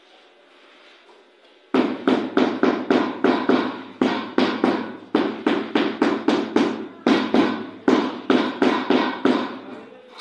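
A floor tile being tapped down into its mortar bed: a quick run of sharp knocks, about three a second, starting a couple of seconds in.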